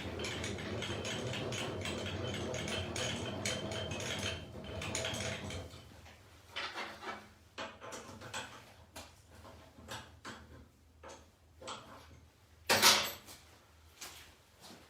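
Drill press running steadily, then stopping about five seconds in. After that come light metallic clinks and knocks of steel parts and tools being handled, with one louder clank near the end.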